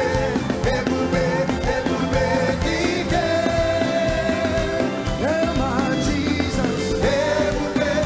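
Gospel praise music: a lead voice sings over a full band with a steady beat, holding one note for about two seconds in the middle.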